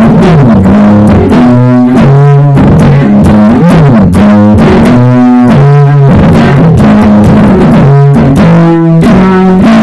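Electric guitar, a Stratocaster, played loud through a tube amp: held notes and chords with several string bends.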